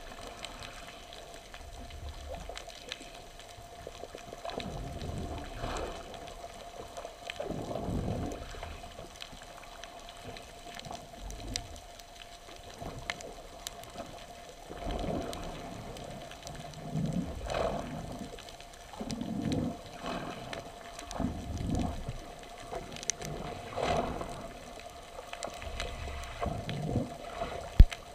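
A boat on the water: a steady hum with irregular sloshing and gurgling of water against the hull, and a few light knocks.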